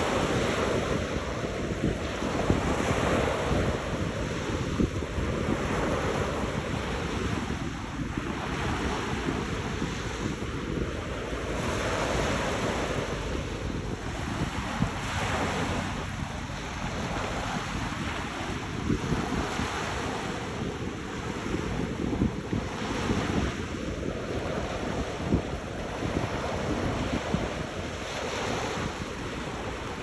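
Small waves breaking and washing up a pebble beach, the surf rising and falling every few seconds, with wind buffeting the microphone.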